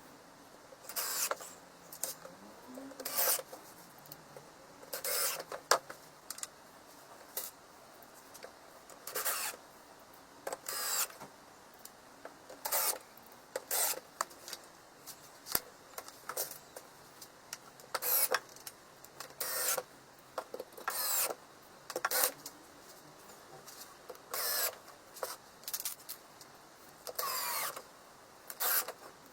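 A hand tool working wood: short scraping strokes, each a fraction of a second long, coming irregularly about once every one to two seconds with pauses between.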